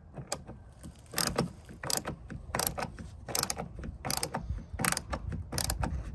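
Hand screwdriver driving a screw into a plastic truck door panel, a short burst of mechanical sound with each turn of the handle, about every 0.7 seconds, starting about a second in.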